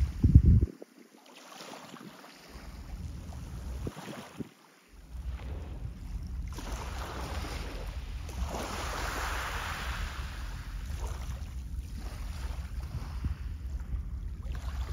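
Wind buffeting the microphone, a low, uneven rumble with a loud gust about half a second in. The rumble drops out twice near the start, then returns steadily, with a soft rushing swell in the middle of the clip.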